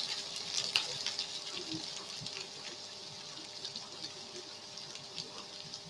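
Fried noodles sizzling softly in the pan, the sizzle fading away over the first couple of seconds, with a few light clicks of a utensil.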